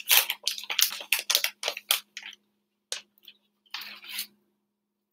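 Plastic bag of shredded coconut crinkling as it is handled and scooped from. There is a quick run of crackles for about two seconds, a single click near three seconds in, and a short rustle about four seconds in.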